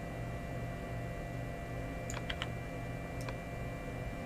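Steady low electrical hum of a quiet room, with four faint clicks at the computer between about two and three and a half seconds in.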